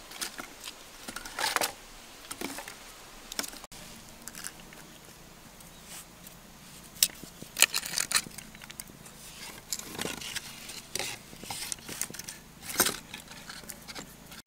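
Dry sticks and branches handled and laid onto a smouldering fire: irregular wooden knocks, scrapes and snaps, a dozen or so sharp clicks spread out with short pauses between them.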